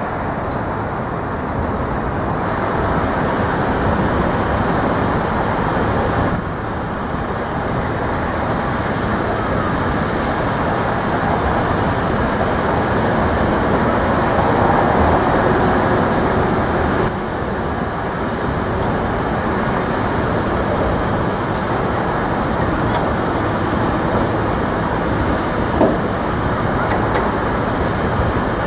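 Steady road traffic noise from vehicles crossing the Manhattan Bridge, an even rumble and hiss with no single vehicle standing out.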